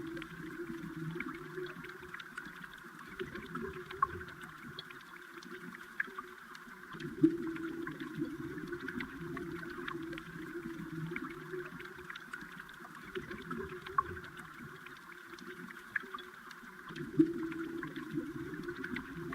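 Flowing river water heard underwater: a steady rushing hum and hiss with scattered small clicks throughout. Two louder knocks stand out, about seven seconds in and again near the end.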